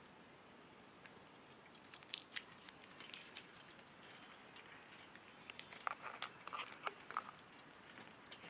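Slime being squeezed and poked, making faint sticky clicks and small crackling pops. A few sharp clicks come about two to three and a half seconds in, then a denser run of crackles about six to seven seconds in.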